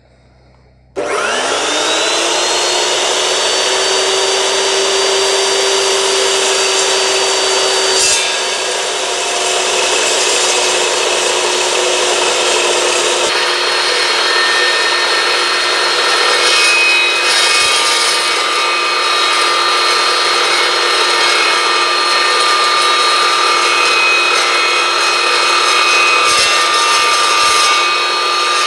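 Evolution S355MCS 14-inch dry-cut metal chop saw starting about a second in, its motor whine climbing quickly to a steady pitch. Its blade then cuts steadily through 3-inch, quarter-inch-wall angle stock.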